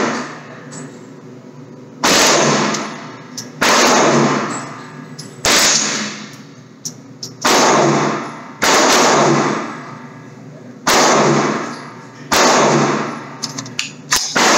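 Seven single gunshots, spaced about one and a half to two seconds apart, each followed by a long, ringing echo.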